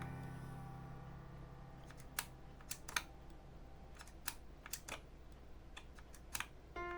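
A held piano chord from background music dies away, then about a dozen sharp, irregularly spaced mechanical clicks follow over the next few seconds.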